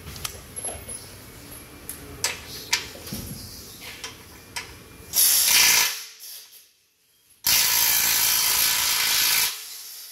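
Powered ratchet spinning the pivot bolt of a tubular front lower control arm into the chassis, in two bursts: a short one about five seconds in and a longer one of about two seconds near the end. Before them come light clicks and knocks of the bolt and metal parts being handled.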